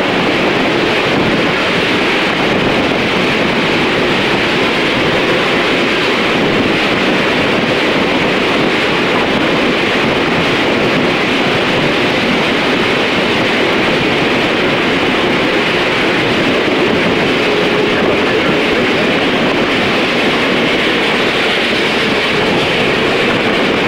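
Steam-hauled passenger train running at steady speed, heard from a coach window: a continuous rush of wheels on rail and passing air, unchanging in level.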